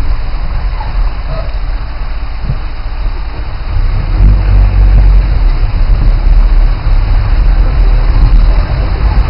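Motor vehicle engine running under load with a heavy low rumble, growing louder about four seconds in.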